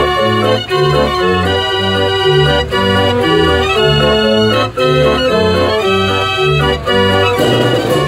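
48-key Limonaire Dutch street organ playing a tune: pipe melody over bass notes that alternate in a steady oom-pah beat, about two a second. The sound turns rougher and busier near the end.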